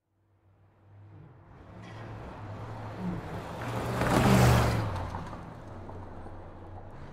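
A motor vehicle passing by on the road, its engine and road noise growing louder to a peak about four seconds in, then fading away.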